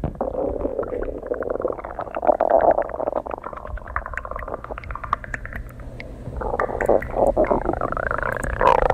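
Stomach growling: a long, bubbly gurgle full of quick little pops, with a drawn-out growl that bends up and down in pitch near the end.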